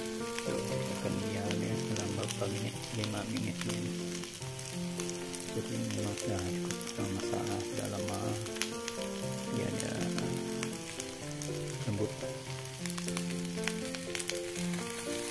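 Sliced jering beans frying in oil in a non-stick wok: a steady sizzle with scattered sharp crackles. A soft background melody of stepping notes plays underneath.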